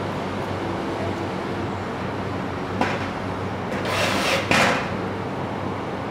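A wall data cabinet being handled on the workbench: a single click about three seconds in, then a short scraping rub about a second later as a hand moves over the cabinet's top. A steady low hum runs underneath.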